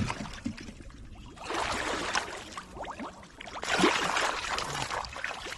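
Shallow muddy pond water sloshing and splashing as a landing net is swept through it, in two spells separated by a brief lull.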